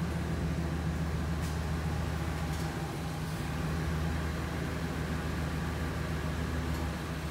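A cargo van's engine idling steadily, a low even hum.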